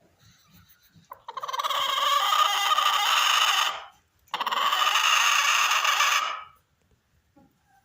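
Rooster crowing twice, two long calls of about two and a half seconds each, back to back.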